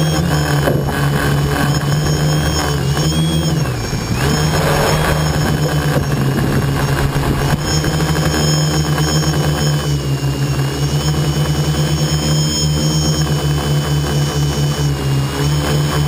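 Tricopter's electric motors and propellers buzzing in flight with a high whine above the hum, close on the craft's own camera; the pitch dips briefly about four seconds in as the throttle eases, then holds steady.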